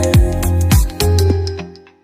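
Background music: an instrumental stretch of a pop song with a steady kick-drum beat and held synth notes, fading out near the end.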